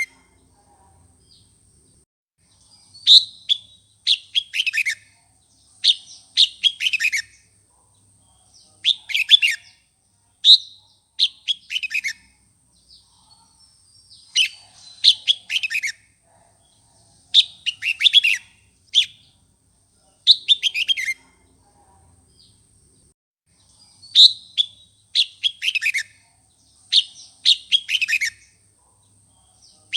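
Red-whiskered bulbul singing: short, bright phrases of quick notes that drop in pitch, repeated every second or two in bouts separated by brief pauses.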